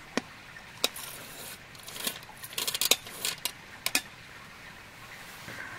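Small gear being handled by hand: a string of sharp clicks and light clatters, with a quick run of them between about two and four seconds in.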